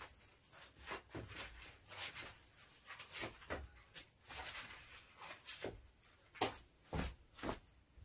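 Sandals being slipped on and scuffed across a bare floor, then a few footsteps: faint, irregular short scuffs and taps, with a few louder ones near the end.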